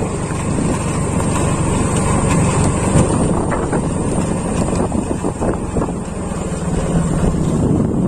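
Engine of a moving vehicle running steadily on a rough uphill road, with wind rushing over the microphone.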